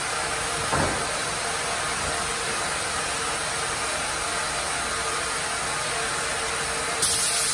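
Sawmill band saw and log carriage running with a steady rushing machine noise while a log is sawn into boards. There is a brief knock about a second in and a short, loud burst of hiss near the end.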